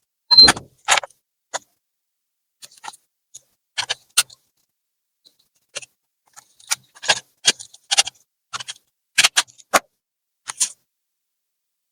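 Irregular small clicks and taps of tools and plastic parts being handled while a laptop is taken apart, some close together in pairs and clusters.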